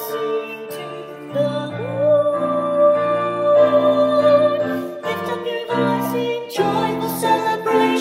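Choir singing a lively anthem with piano accompaniment: sung notes held over sustained piano chords, with a long note held through the middle.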